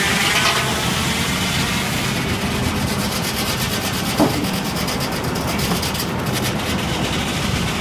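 Sawmill machinery running loud and steady as the carriage carries a large log through the circular headsaw, with one sharp knock about four seconds in.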